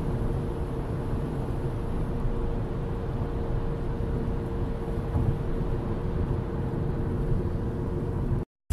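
Steady road and engine noise inside a moving car's cabin as it drives through a road tunnel, with a faint steady hum.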